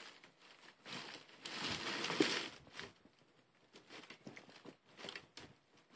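Faint crinkling and rustling as a new motorcycle boot and its packaging are handled, the longest rustle about a second and a half in, followed by a few light ticks and taps.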